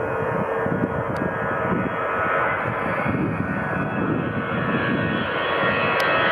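Lufthansa Airbus jet airliner taking off: its engines give a steady loud roar, a whine of many high tones over a rough low rumble.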